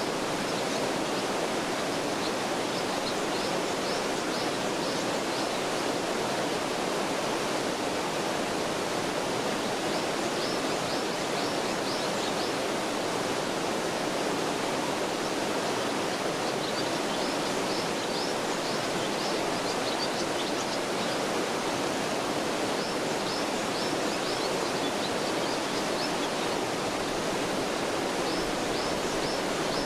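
Mountain stream rushing steadily over rocks, a continuous even wash of water. Above it, small birds chirp in short quick runs of high notes every few seconds.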